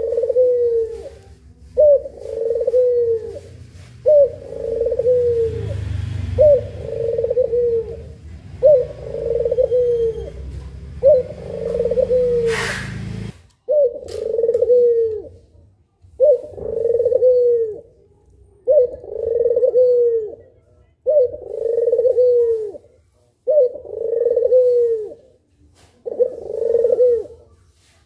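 Puter pelung dove (a barbary/ringneck dove breed) cooing over and over, about one coo every two seconds, each a short opening note followed by a longer falling one. A low rumble runs under the first half and cuts off suddenly about halfway through, just after a sharp click.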